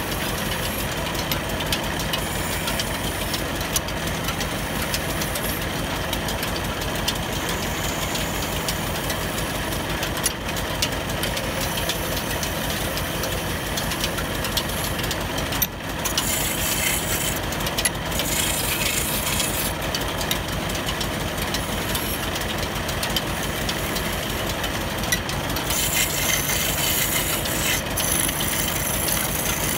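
Wood lathe running with a fast, steady rattle while a hand chisel cuts into a spinning wooden rolling pin blank. The cutting is a hissing scrape that gets louder about halfway through and again near the end.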